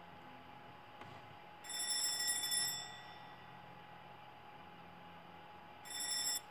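Cartoon alarm-clock sound effect: a high electronic ring lasting about a second, then a shorter ring near the end that cuts off suddenly. It is heard through a computer's speaker.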